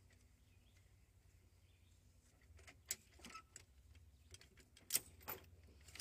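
Steel chain and scissor jack clinking and rattling as they are handled and unhooked, in scattered metallic clicks from about halfway in, loudest twice; quiet before that.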